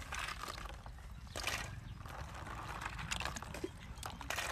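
Apple snails being washed by hand in a plastic basin of water: shells clicking against each other and water sloshing, with two louder splashing rustles, one about a second and a half in and one near the end.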